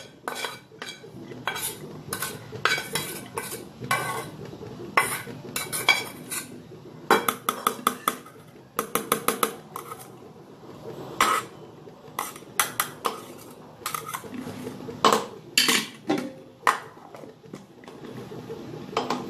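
Metal spoon scraping and tapping against a steel pan and a steel mixer-grinder jar as the contents are knocked into the jar: repeated clinks and knocks, with a quick run of taps about nine seconds in.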